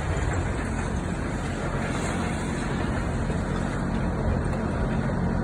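A heavy diesel engine running steadily at a constant, even drone with a wash of mechanical noise.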